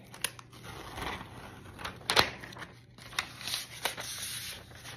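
Crinkling and crackling of packaging wrap being pulled off a new iPad, with scattered sharp crackles; the loudest comes about two seconds in.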